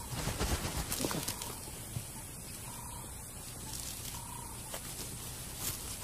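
African wild dog digging out a den burrow, its paws scraping and flinging loose dry dirt, busiest about the first second and a half, then lighter scratching.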